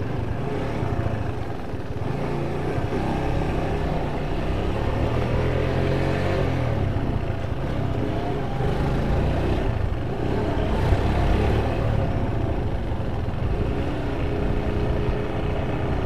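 Motorcycle engine running while being ridden at low speed, its pitch rising and falling with the throttle over a steady low rumble.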